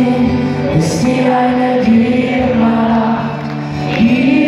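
Live pop music: long held sung notes over acoustic guitar, with the pitch stepping up near the end.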